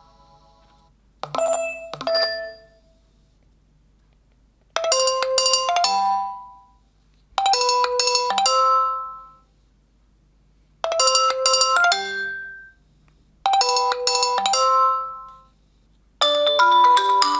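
Nokia 2.2 smartphone ringtones playing: a short two-note chime, then a bright chime phrase of a few quick notes that repeats four times about every three seconds. A new, busier ringtone melody starts near the end.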